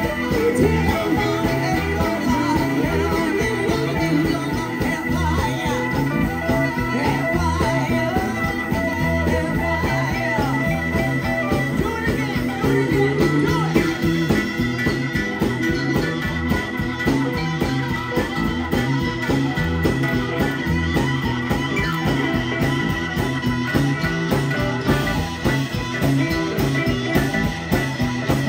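Live blues band playing through a PA: drums and electric bass, with amplified harmonica and keyboard.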